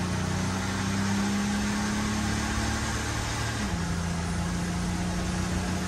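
Cummins turbo-diesel engine of a 2006 Ram 2500 running steadily at cruise, heard from inside the cab over a steady rush of road and wind noise. The engine note drops slightly a little over halfway through.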